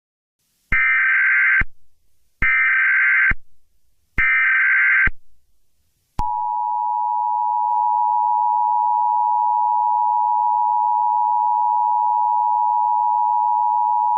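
Emergency Alert System tones: three short, harsh screeching bursts of SAME header data, each under a second long and spaced a little under two seconds apart. About six seconds in, the long two-tone attention signal starts, a steady, loud pair of tones that holds to the end.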